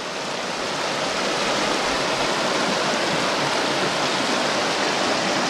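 Creek water rushing steadily over rocks in fast white-water rapids.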